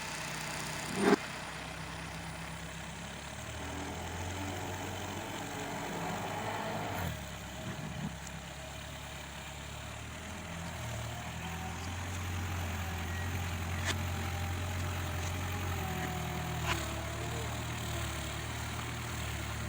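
Diesel engine of a JCB 1CX compact backhoe loader running, its note rising and falling as it works. A sharp knock about a second in, and a few lighter clicks later.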